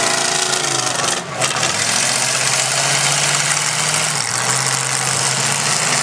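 Several demolition derby cars' engines running together in a loud, steady drone, with a brief dip about a second in.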